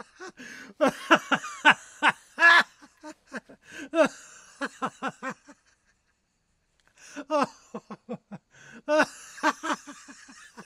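A man laughing: quick runs of short laughs, several a second, in bouts broken by a silent pause of over a second just after the middle.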